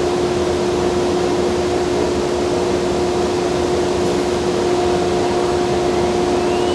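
Steady drone of a CNC nesting router's equipment running: the vacuum pump holding the sheet on the table and the dust collector, with a strong steady hum. A faint rising whine starts near the end.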